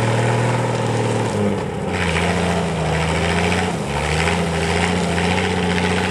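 Toyota FJ's engine running steadily as the truck drives up a dirt trail. Its note shifts a little over a second in and again near the middle.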